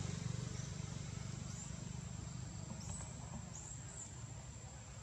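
Tropical forest ambience: a steady high-pitched insect drone, a few short rising bird chirps, and a low engine rumble that fades away.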